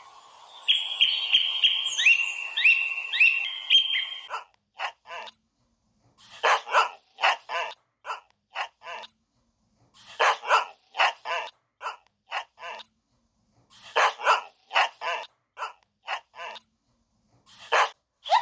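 A parrot gives a quick run of short rising squawks for the first four seconds or so. Then a dog barks in clusters of short barks, with pauses of a second or two between them.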